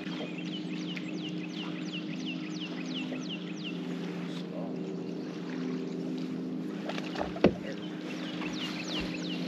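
Steady hum of a bass boat's bow-mounted electric trolling motor, with a sharp click about seven and a half seconds in. A run of quick, high, downward-sliding chirps, about three a second, sounds at the start and again near the end.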